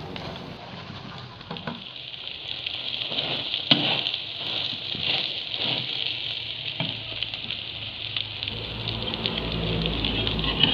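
Egg omelette sizzling in hot oil in a frying pan, nearly cooked. A metal spatula scrapes and taps against the pan now and then, sharpest about three and a half seconds in.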